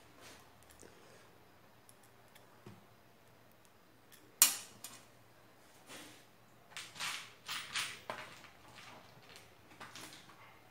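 Screw and screwdriver working against a steel computer case: a sharp metallic click about four seconds in, then a run of light metal clinks and scrapes around seven to eight seconds and again near ten seconds, as a screw is tried that won't bite and tighten.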